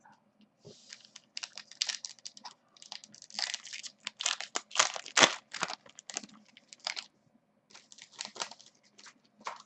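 Foil wrapper of a trading-card pack crinkling and tearing as it is handled and opened: an irregular run of crackly rustles, loudest about halfway through.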